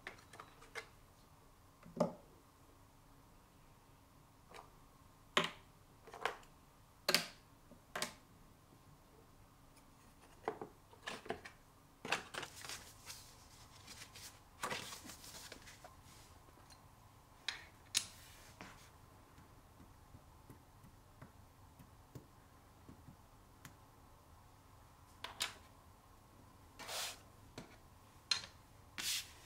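Wooden rubber stamps and plastic ink pads being picked up and set down: irregular light clicks and knocks, some in quick clusters, with quiet gaps between.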